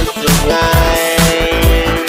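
Electronic ringtone music from an LG T300 Cookie Lite phone, with sustained synth tones over a steady bass beat.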